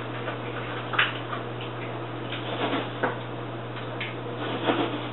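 Cooking utensil scraping and clicking against a skillet as a tomato-sauce mixture is stirred, with a few light taps about one, three and four seconds in, over a steady low hum.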